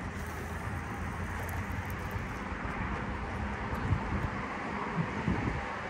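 Steady low rumble with wind noise on an open fishing boat, with a couple of short knocks about four and five seconds in.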